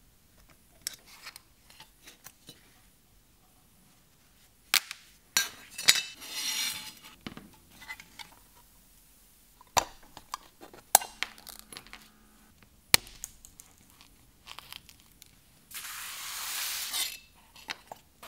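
Pressed-tin toy boat hull being taken apart with a metal pick: a series of sharp metallic clicks and clinks as the tin tabs are pried and the hull halves knock together, with two stretches of scraping, one about six seconds in and a longer one near the end.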